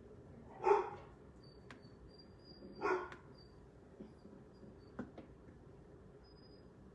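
Two short animal calls about two seconds apart, followed by a few faint clicks.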